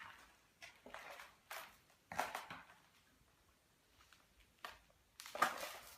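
Footsteps crunching and scuffing on a rubbish-strewn floor, in a few irregular steps with a pause in the middle.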